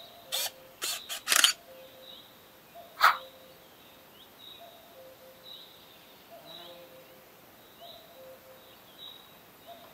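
A few sharp camera-shutter clicks in the first second and a half, and a louder click about three seconds in. Then faint, repeated high bird chirps over quiet outdoor ambience.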